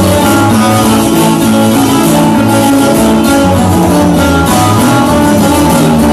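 Loud, continuous instrumental music led by strummed and plucked guitars over a steady bass line.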